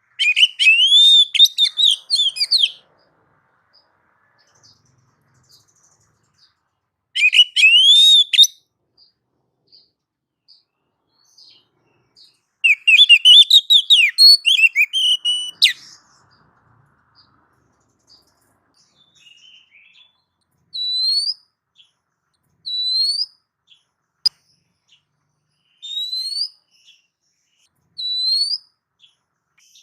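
Oriental magpie-robin singing: three bursts of varied, rapid song phrases in the first half, then four single rising whistles, each two to three seconds after the last.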